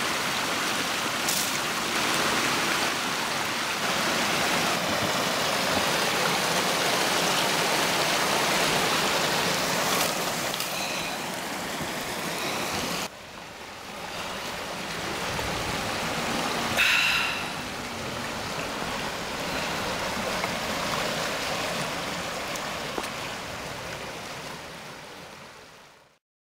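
Water rushing steadily through the gap pulled in a beaver dam. About halfway it cuts sharply to a somewhat quieter flow of stream water, broken once by a brief high-pitched sound, and then fades out at the end.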